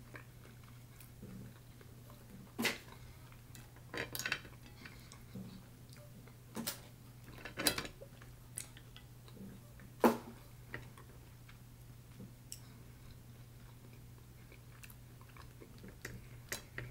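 Snow crab leg shells being cracked and snapped apart by hand: a string of sharp cracks and clicks, the loudest about ten seconds in, over a steady low hum.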